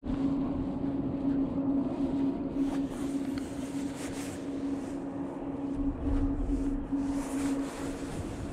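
Bass boat's motor running with a steady hum.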